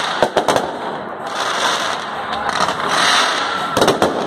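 Aerial fireworks shells bursting in sharp bangs, a cluster just after the start and another cluster near the end, with continuous crackling noise from the glittering gold shells in between.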